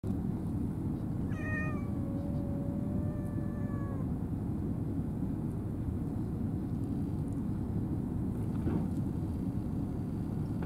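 A cat meowing once, a long drawn-out meow starting about a second in and lasting nearly three seconds, over a steady low rumble.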